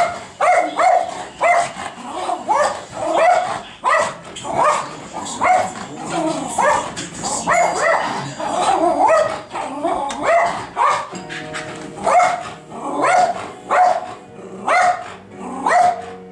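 A Puli dog barking over and over, a rapid run of sharp barks about two a second, typical alarm barking at a delivery.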